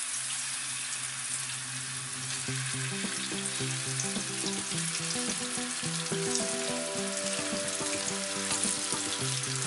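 Turmeric-marinated kingfish steaks sizzling in hot oil in a frying pan as more pieces are laid in one after another, with background music underneath.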